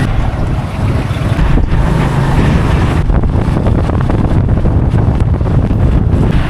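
Heavy wind buffeting the microphone during a ride through traffic, with the rumble of the moving vehicle underneath.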